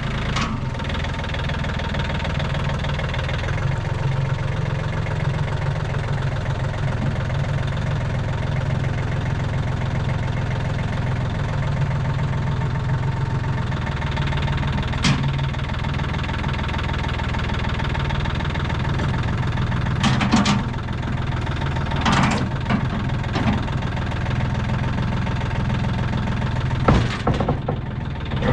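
Skid steer engine running steadily at idle, with a few short knocks or clatters about halfway through and near the end.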